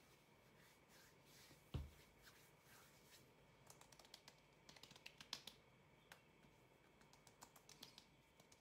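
Faint soft taps of hands patting skin cream into the face, coming in short quick runs, with one dull thump about two seconds in.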